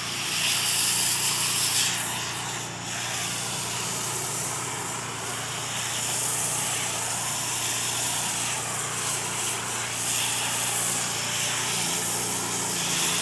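Pressure washer running steadily with a foam cannon spraying onto a car: a constant motor and pump hum under the hiss of the spray.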